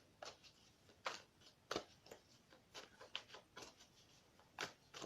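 Faint, irregular soft clicks and taps of tarot cards being handled on a table, several over a few seconds.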